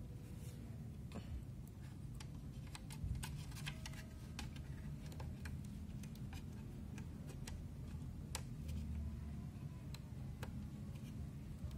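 Scattered small clicks and taps of a hard drive's power cable connector being handled and pushed into place inside a DVR case, thickest from about three to five seconds in, over a faint low hum.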